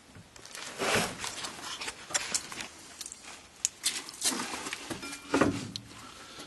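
Irregular metal clicks, clinks and scrapes of hand tools working the caliper mounting bolt on a car's rear brake caliper bracket, with a brief squeak about five seconds in.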